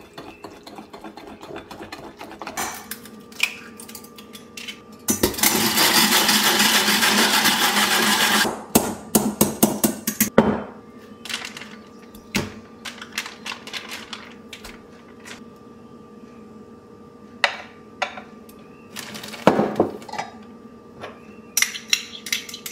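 Kitchen handling sounds: a metal spoon stirring and clinking against a glass measuring cup and bowl, with scattered knocks and taps. About five seconds in, a loud hissing, crackling noise lasts about three seconds, and a faint steady hum sits underneath throughout.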